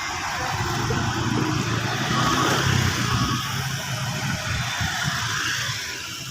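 A road vehicle passing close by: engine rumble and tyre noise that builds towards the middle and fades near the end.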